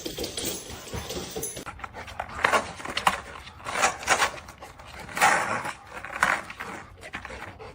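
A dog panting, in short breathy gasps at uneven intervals.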